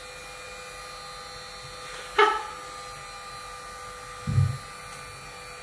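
Handheld electric heat gun running with a steady fan hum and whine, heating vinyl wrap. A brief sharp sound comes about two seconds in and a short low thud a little after four seconds.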